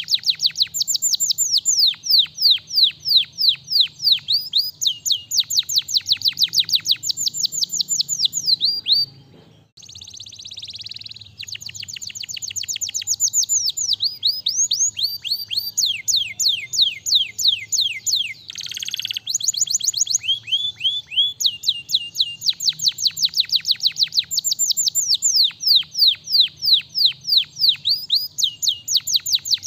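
Domestic canary singing long fast trills of rapidly repeated down-slurred notes, breaking off briefly about nine seconds in before starting again.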